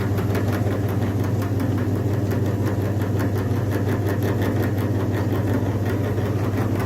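Electric grinder motor running steadily with a low hum and a fast, even rattle.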